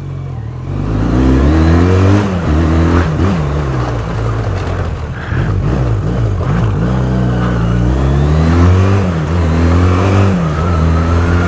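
Motorcycle engine with a freshly cleaned carburetor accelerating hard through the gears. The revs climb and drop back with each shift. A faint steady high tone joins in near the end.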